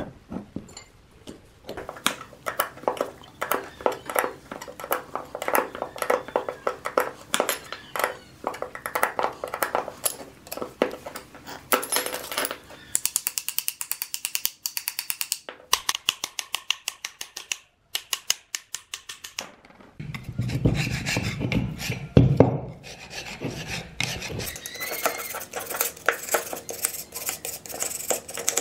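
Metal hand tools and loose rusty parts clinking, clicking and knocking as a gear puller and motor parts are worked apart, with a fast run of even clicks about halfway through. Near the end, a flat metal bar scrapes and rattles across the finned housing of an old electric motor, knocking off flaking paint.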